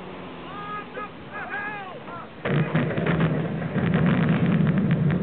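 A few high calls that rise and fall, like seabirds, then a sudden loud rumble of a stormy sea with crackling from about two and a half seconds in: a storm-at-sea soundscape.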